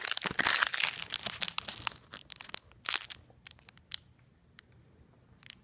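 Thin wrapper crinkling and crackling as it is handled, most likely the foil of a chocolate surprise egg. The crackling is dense for about two seconds, then thins to scattered crackles, with one more near the end.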